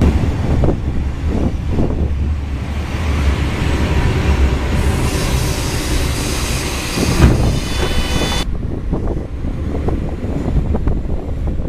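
Regionova diesel railcar running with a steady low rumble. About five seconds in a hiss joins it, with a brief high squeal near the end of it, and the hiss cuts off suddenly about eight and a half seconds in.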